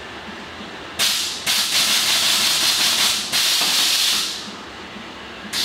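Air-ride suspension on a 1968 GMC C10 pickup hissing as its valves let air move through the airbags. The hiss comes in several sharp-starting bursts from about a second in to about four seconds, then a new burst starts at the very end.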